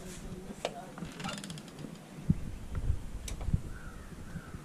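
Door hardware clicking, with a quick rattle of ticks about a second in, then heavy footsteps thumping on the walk. A crow starts cawing near the end, several calls in a row.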